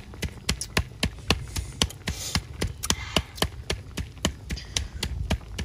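Wood fire crackling under a cooking pot: sharp, irregular pops about four or five a second over a low rumble, with a brief hiss about two seconds in.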